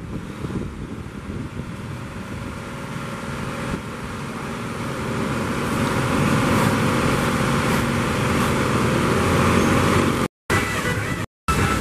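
Heavy rain with strong wind, a loud steady hiss that builds louder about four to six seconds in. It cuts out briefly twice near the end.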